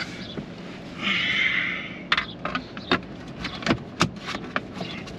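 Hands working plastic interior trim and dash-cam cables overhead. There is a brief scraping rustle about a second in, then a run of sharp plastic clicks and taps as the wires are tucked in around the mirror cover.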